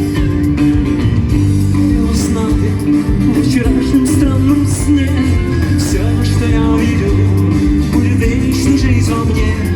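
Rock band playing live, with a guitar prominent over a steady drum beat.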